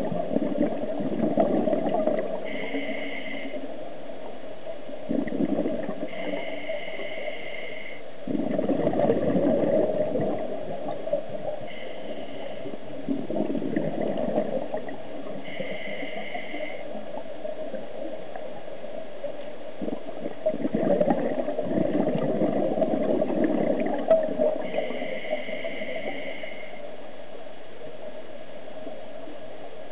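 A scuba diver's regulator breathing underwater: a burst of exhaled bubbles gurgles every few seconds, with a brief high whine between the bursts.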